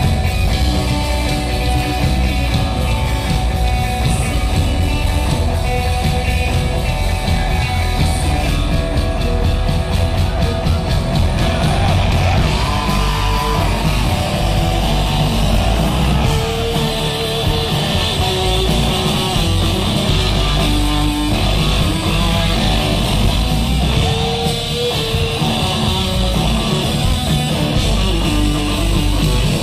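A rock band playing live and loud, electric guitars over bass and drums, heard from the audience in the concert hall.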